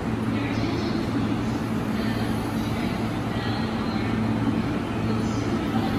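JR East E233 series electric train standing at the platform with its doors closed, giving a steady low hum.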